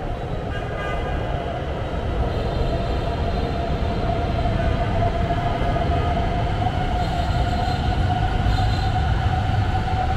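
Metro train on Hanoi's elevated urban railway pulling into the station, a low rumble growing louder as it comes alongside, with a steady whine that slowly rises in pitch.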